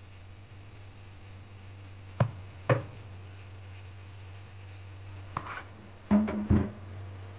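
Chinese cleaver cutting crisp fried dough held over a concrete counter: two sharp chops about half a second apart, then after a pause a quicker cluster of knocks and clatters. A low steady hum runs underneath.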